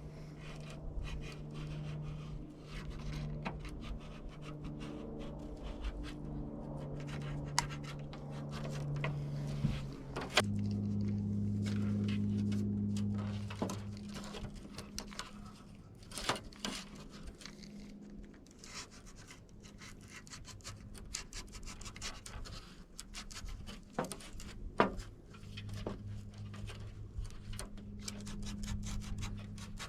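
A screen roller tool pressing rubber spline into the screen frame's channel: scratchy rubbing with scattered sharp clicks and knocks. Soft background music with low sustained notes plays under it.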